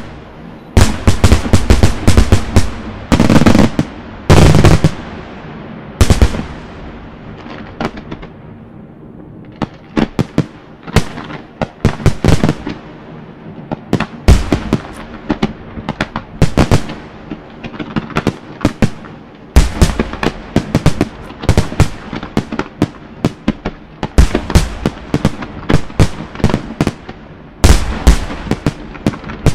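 Fireworks display with aerial shells bursting: a dense barrage of heavy booms in the first few seconds, a short lull, then a running series of sharp cracks and bangs, several a second.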